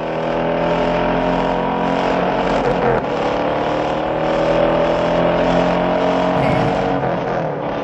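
Car engine running at high revs, its pitch climbing slowly through the middle and easing off before it fades out near the end.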